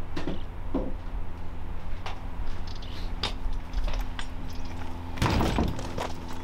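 Key and iron latch being worked in the lock of a wooden shed door: a few short clicks and knocks, with a louder rattle about five seconds in, over a low steady rumble.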